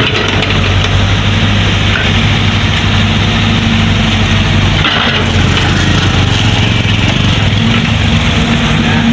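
Backhoe loader's diesel engine running steadily, with a brief dip in its note about five seconds in.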